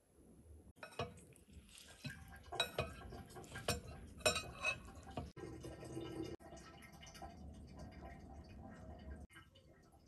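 A metal spoon scraping and clinking against a bowl while mixing instant noodles with chili sauce and mayonnaise, with several sharp clinks in the first half. After about five seconds the sound turns softer and steadier as the food is handled with chopsticks.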